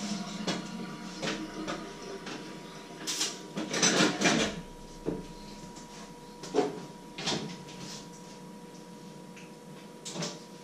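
Kitchen clatter: scattered knocks and clinks of cookware and dishes being handled at a sink and stove, busiest about three to four and a half seconds in, over a faint steady hum.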